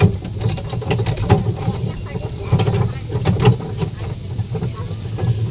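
Small ride-on tourist train rolling across paving blocks: a steady low rumble with irregular rattles and knocks from the carriages.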